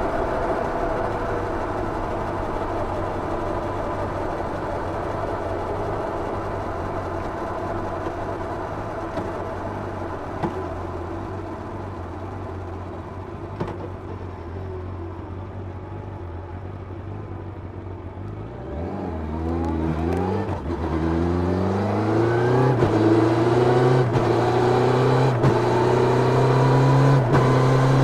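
The inline-four engine of a 1990 Yamaha FZR 600, heard onboard with its stock exhaust. For about eighteen seconds it holds a steady note that slowly falls and quietens, then it revs up in several short rising pulls and keeps climbing steadily, louder, near the end.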